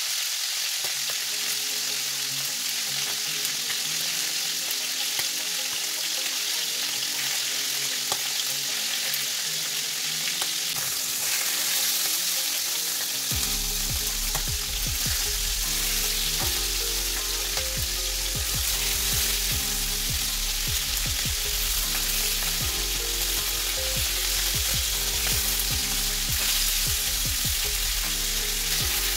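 Oxtail pieces searing in hot vegetable oil in a frying pan, a steady sizzle. In the second half, metal tongs click and scrape as the pieces are turned.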